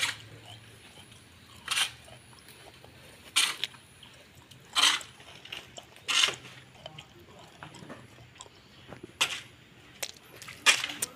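Hoe blade chopping into damp, stony garden soil: a series of short, sharp strikes, roughly one every one and a half seconds, with a longer pause in the middle.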